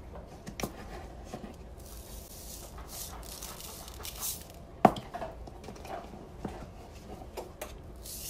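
Sprinkles shaken from a small container, pattering onto cookie dough and a baking sheet in short hissing bursts with scattered small clicks, and one sharp click about halfway through.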